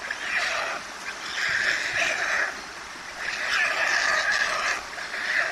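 White stork chicks giving begging calls at the nest in repeated bursts about a second long, with short pauses between them.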